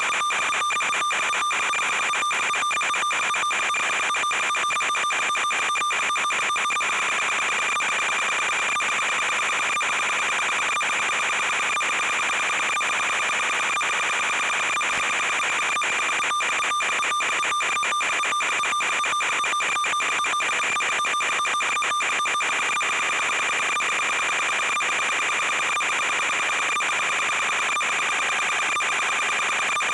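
Steady high electronic whine over hiss from the quadcopter's analog FPV video link, broken by many brief crackling dropouts, thickest in the first several seconds and again in the middle.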